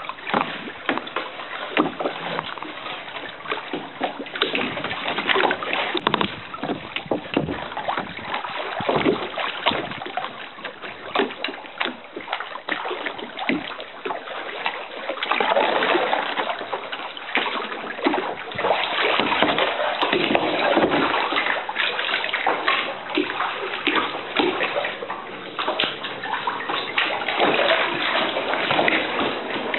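Lake water splashing and sloshing against the rock walls of a narrow cave around a kayak, with many small sharp splashes and slaps. It grows louder about halfway through.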